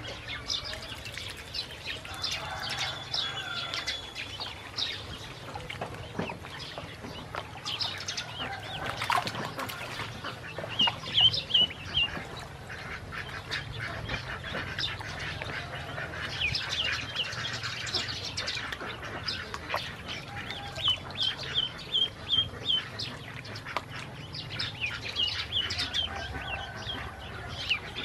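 Ducklings peeping, in quick runs of short high calls, over small splashes and dabbling in shallow water.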